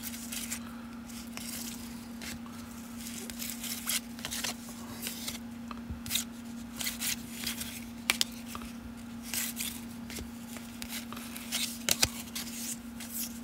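Baseball trading cards being flipped through by hand, each card slid off a stack and tucked behind it: soft irregular slides and flicks of card stock, with a few sharper ticks. A steady low hum runs underneath.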